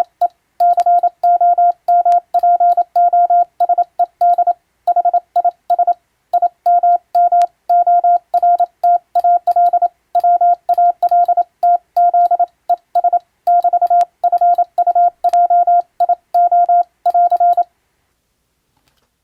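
Morse code sent as a single keyed beep tone, switched on and off in dots and dashes at a brisk speed, spelling out an English-language practice radiotelegram; the sending stops near the end.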